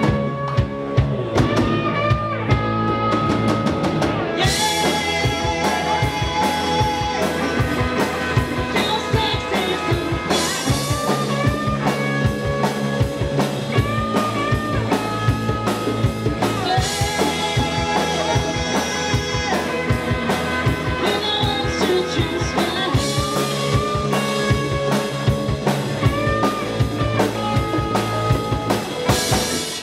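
Live rock band playing: drum kit, electric guitars and bass, with a woman singing lead. Cymbals come crashing in about every six seconds.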